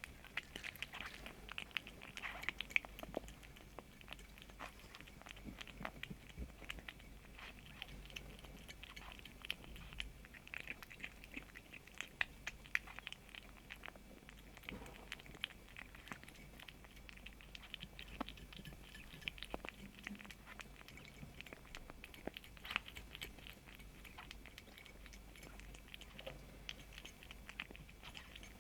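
Kitten chewing and eating a snack: a faint, continuous run of many small irregular clicks.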